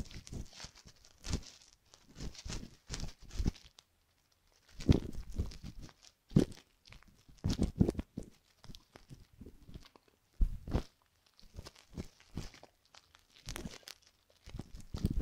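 Metal tweezers and an ear hook scraping and prodding inside the canal of a silicone ear microphone, heard very close as irregular crackles and scratches with a few soft thumps.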